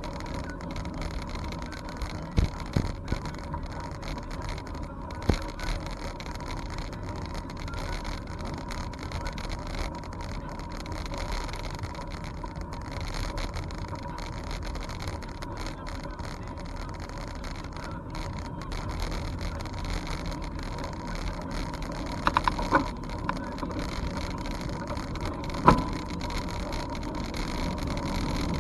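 A bicycle riding along: steady wind and rolling noise on the microphone, with a few sharp knocks from bumps, about two seconds in, around five seconds, and a cluster near the end.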